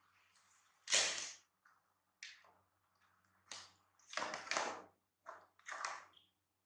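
Hard plastic knocking and scraping on a tiled floor, from a plastic plate and stool being handled, in a string of irregular clatters. The loudest comes about a second in, and a cluster of knocks follows around four to five seconds.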